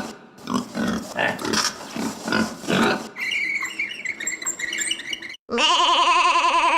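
Recorded pig grunting in short repeated grunts for the first few seconds, then a sheep bleating with a long wavering bleat near the end.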